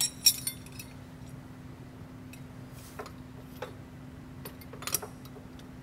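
Scattered light metallic clicks and clinks as a steel mounting bracket and its bolts are handled and offered up under an APU, over a steady low hum.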